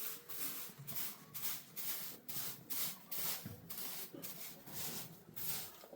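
Repeated brushing or scraping strokes on the ground, about two a second and unevenly spaced, as in sweeping or scraping a yard by hand.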